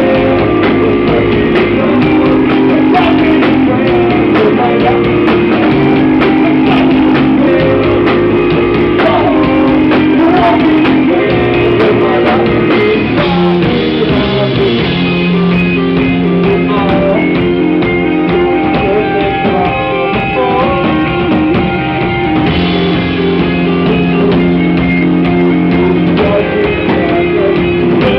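Rock band playing live: guitars and drum kit with a singer, loud and continuous.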